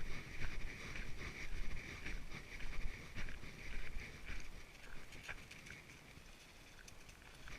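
Walking footsteps on a trail, about two steps a second, fading to quieter steps in the last couple of seconds, with low wind rumble on the microphone.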